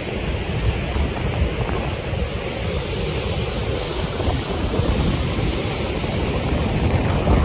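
Fast river water rushing through rapids below a waterfall, a steady roar, with wind buffeting the microphone.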